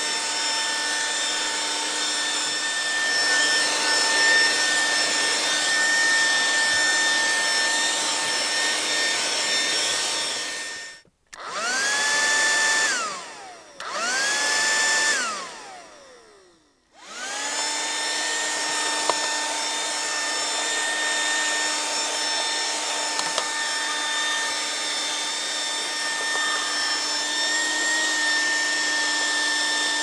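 Corded handheld car vacuum cleaner running with a steady motor whine. About eleven seconds in it stops, then runs twice briefly, each time winding down with a falling whine, before running steadily again.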